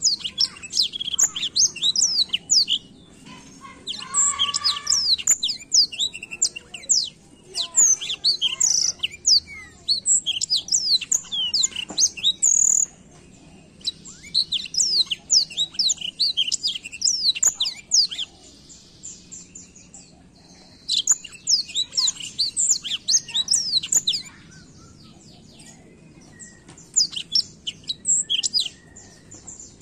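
Blackthroat (black-throated canary) singing a fast, high twittering song in bursts of a few seconds each, broken by short pauses about seven times.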